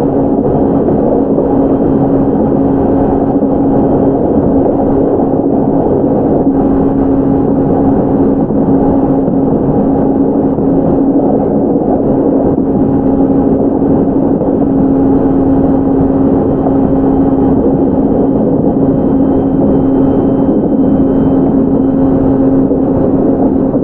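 JR 701 series electric train (KuMoHa 701-38, fitted with a Mitsubishi IGBT inverter drive) running at a steady speed: a loud, even rumble of wheels on rail with a steady low hum held throughout.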